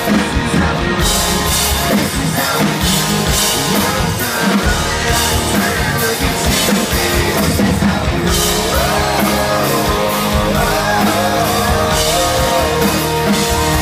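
Live country-rock band playing loudly through a PA, with drums and electric guitar.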